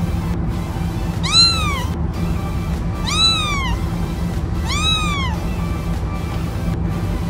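Young kitten meowing three times, each meow short and high, rising then falling in pitch, roughly two seconds apart, with background music underneath.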